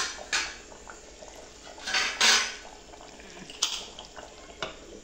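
Metal ladle clanking and scraping against the aluminium pressure-cooker pot while stirring simmering goat-meat curry: about five separate strokes, the loudest a longer scrape about two seconds in.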